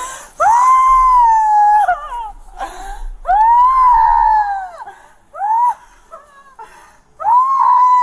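A woman screaming in long, drawn-out wails, each about a second and a half, three times with a short cry between them. She is heavily drunk and being held down on the floor.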